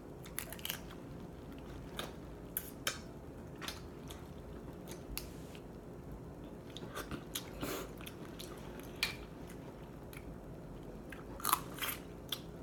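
Close-up eating of boiled seafood: chewing and biting, with scattered sharp clicks and smacks from peeling and eating the crab and shrimp, the loudest cluster near the end.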